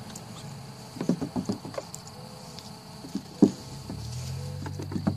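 A cat's paws knocking and scrabbling on a plastic playground slide. There is a quick run of light knocks about a second in, and one sharper, louder knock midway.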